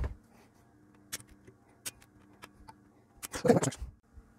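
Workbench handling sounds: a few sharp light clicks, then a short metallic clatter about three seconds in, like tools or small parts being set down, over a faint steady hum.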